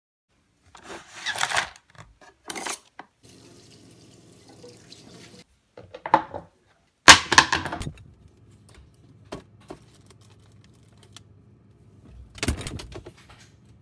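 Kitchen handling sounds: several short clatters and rustles, with water running from a sink tap for about two seconds a few seconds in. The loudest clatter comes about seven seconds in, as a freezer drawer is opened and its contents handled, over a steady low hum.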